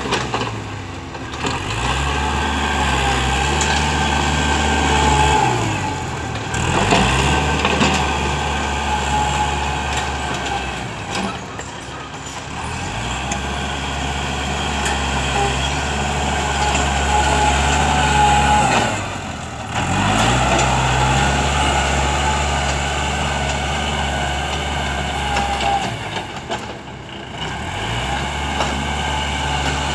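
Kubota L5018 tractor's diesel engine running steadily while its front dozer blade pushes soil. The engine note drops and climbs back several times.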